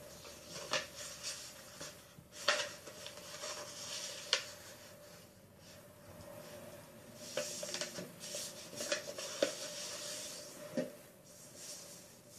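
A sheet of paper being folded by hand on a wooden table: rustling and sliding in uneven patches as it is smoothed and creased, with a few sharp crinkles and taps.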